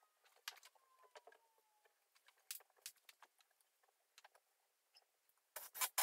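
Scattered light clicks and taps of wooden shims being handled and fitted behind a door jamb. A faint squeak slides down in pitch over the first two seconds, and a quick rattle of louder clicks comes near the end.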